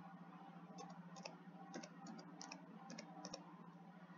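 Faint typing on a computer keyboard: a run of light, irregular key clicks, a few a second, over a low steady hum.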